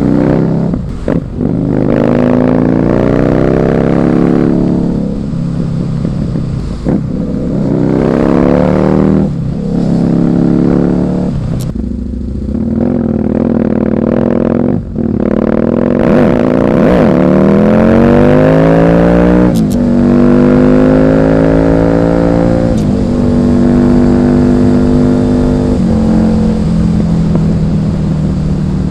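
Husqvarna Nuda 900R's parallel-twin engine pulling hard, its pitch climbing and dropping back at each gear change several times over. Near the end it settles into a steadier cruise.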